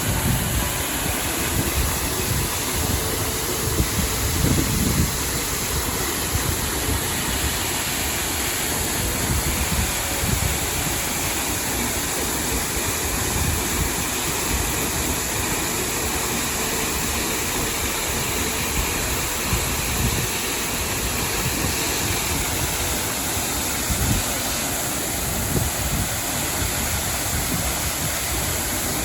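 Steady rush of falling water from a waterfall, an even hiss and roar with uneven low rumbling beneath, strongest in the first few seconds.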